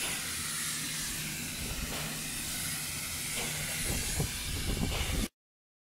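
Silicone roof coating spraying from an airless spray gun, a steady hiss. A low rumble with a few short knocks builds toward the end, and the sound cuts off suddenly about five seconds in.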